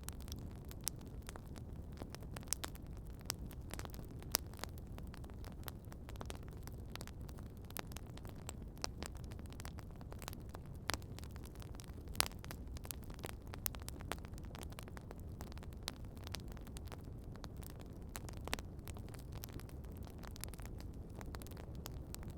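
Wood campfire burning, with irregular sharp crackles and pops over a steady low rumble of the fire.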